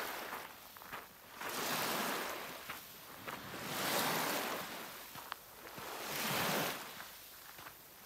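Small waves of a partially frozen lake lapping at the shore: three soft washes of water swell and fade, about two seconds apart, with faint clicks between them.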